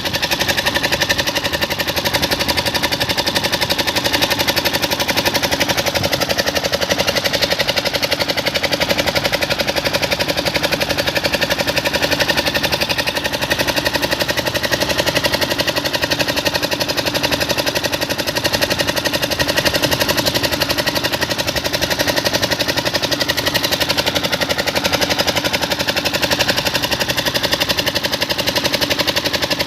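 Crane engine running steadily under load, with a fast, even pulsing throb.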